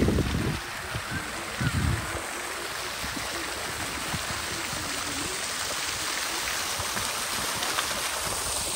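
Steady rushing noise like running water, with two brief low thumps near the start.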